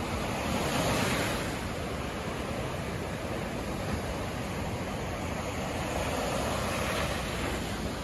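Small sea waves breaking and washing up a sandy beach: a steady rush of surf that swells louder about a second in and again near the end.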